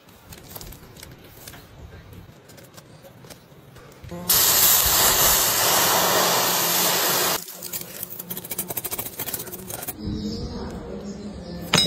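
Water poured onto a freshly cast, still-hot metal casting in a sand mold, hissing loudly as it flashes to steam for about three seconds and then stopping abruptly.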